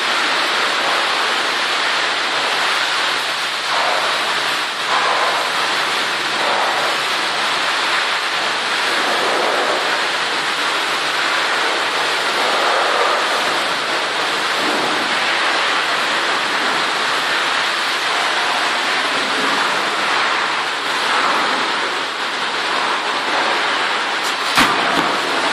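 Steady loud rushing noise, with a brief heavy thud near the end as a loaded steel strongman log is dropped from overhead.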